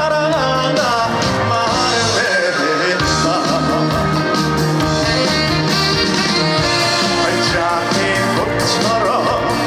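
Live trot song over a PA: a band accompaniment with a steady beat and a male voice singing.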